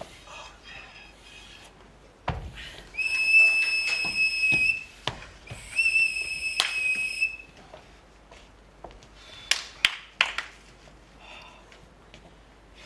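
A whistle blown in two long steady blasts, each lasting about a second and a half, with a short gap between them. Scattered sharp knocks and taps sound around them.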